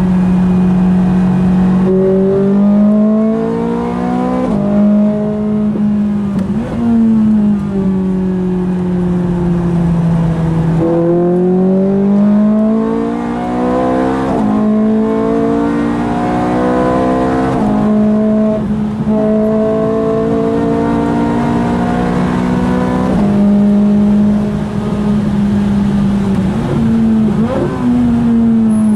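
Ferrari 430 Scuderia's 4.3-litre V8, heard from inside the cabin, pulling hard on track: its pitch climbs under acceleration and drops sharply at each quick gear change, over and over, with a few short revving blips.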